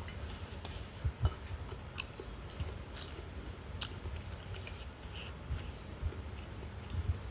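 Close-miked chewing of crunchy food, with irregular sharp crisp clicks over a steady low hum.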